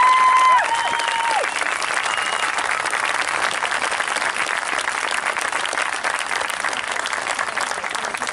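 Audience applauding: a dense, steady patter of many hands clapping. A few long high-pitched calls sound over it in the first second and a half.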